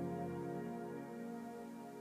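Background music: soft held chords slowly fading out.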